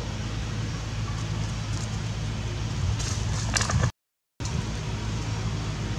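Steady outdoor background noise with a low, even hum. A short crackling rustle comes just before a half-second dropout to total silence about four seconds in.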